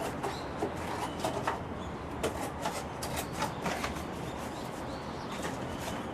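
Birds chirping briefly and now and then, over a steady background hiss with scattered short clicks.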